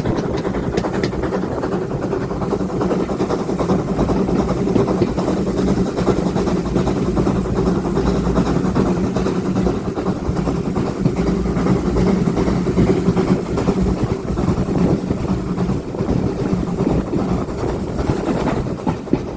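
Train running along the track: a steady, continuous rumble of wheels on rails.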